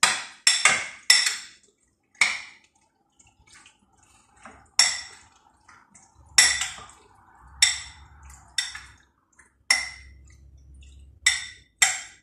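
Spoon clinking against a glass bowl while shrimp are stirred in their seasoning: about a dozen sharp, ringing clinks at irregular intervals.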